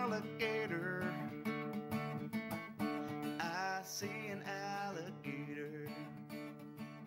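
Acoustic guitar music, gradually fading out.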